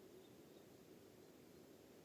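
Near silence: a faint steady background hiss, with a few very faint, short high peeps.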